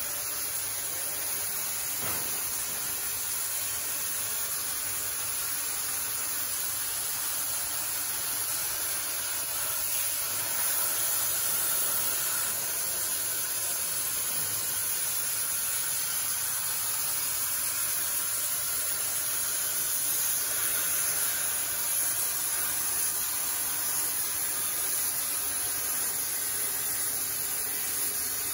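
CNC plasma cutter torch hissing steadily as it cuts through sheet metal, the air-plasma arc running continuously.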